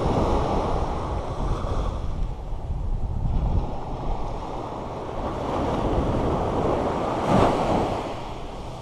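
Small beach surf breaking and washing up the sand, with wind rumbling on the microphone. A wave washes in loudest about seven seconds in.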